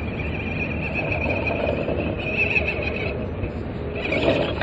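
Radio-controlled scale rock crawler driving up to the camera, its electric motor whining steadily and cutting out for about a second around three seconds in. Near the end there is a louder burst of noise as the truck climbs past the camera.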